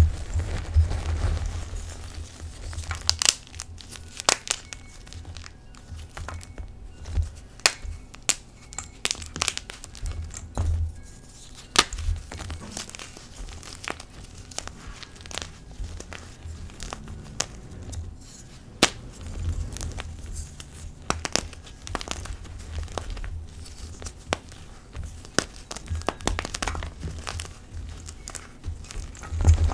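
Hands crushing chunks of Colift gym chalk: dry crumbling and crunching with many sharp, irregular snaps as the pieces break apart, and low thumps from handling.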